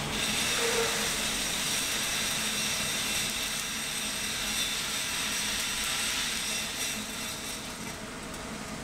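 Freshly roasted coffee beans pouring out of a Probat drum roaster's opened bean door into the cooling tray, a steady rushing rattle over the running roaster and its fans. It eases off shortly before the end.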